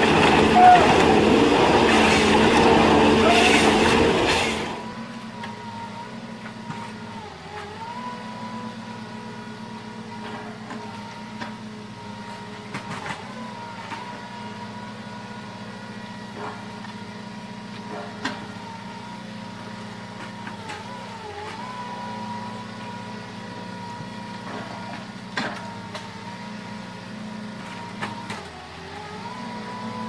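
Forestry harvester head sawing through a tree trunk, loud over the machine's diesel engine, until a cut about four and a half seconds in. Then a forwarder's diesel engine runs steadily while its crane loads logs, the engine note dipping briefly now and then, with scattered knocks of logs.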